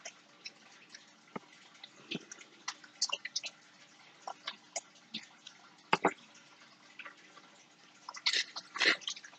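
Scattered small clicks, ticks and rustles of hands handling thread, a paper clip and a tube of super glue at a table, with a louder rustling burst about eight seconds in.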